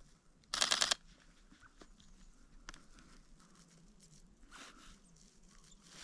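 Sony A7IV camera shutter firing a short, rapid burst of clicks about half a second in, lasting about half a second, then only faint small ticks.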